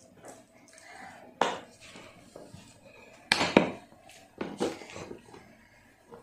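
Hard plastic clicks and knocks as a toy kitchen-set carry case is unlatched and opened, with a few separate sharp knocks, the loudest a little past the middle.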